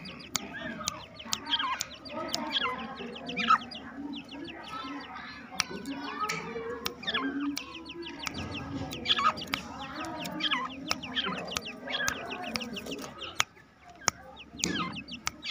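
A crowd of caged game birds and poultry calling together: clucking fowl and many short chirping calls overlapping, with frequent sharp clicks among them.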